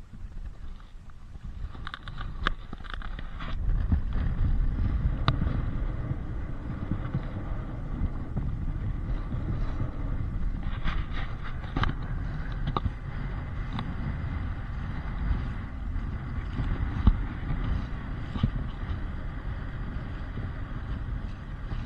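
Wind buffeting the microphone, a low rumble that grows louder about four seconds in, with scattered small clicks and taps over it.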